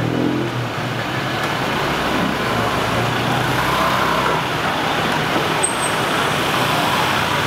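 Steady roadside traffic noise, with a motor vehicle running more loudly about three to four seconds in.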